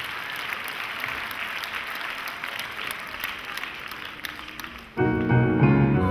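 Audience applauding, gradually fading. About five seconds in, music with long held notes starts suddenly.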